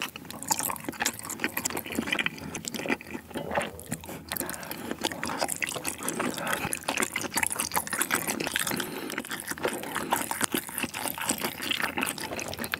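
Wet chewing and mouth sounds of a person eating saucy spicy stir-fried chicken (dakgalbi), with dense sticky, smacking clicks throughout.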